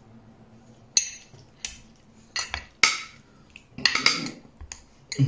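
Utensils clinking and scraping against a glass baking dish and plates as food is served, a string of sharp clinks roughly one a second.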